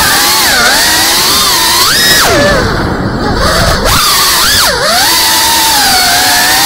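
FPV drone's brushless motors and propellers whining, the pitch rising and falling with the throttle. About two seconds in the throttle drops and the whine sinks low for a second or so, then climbs back up.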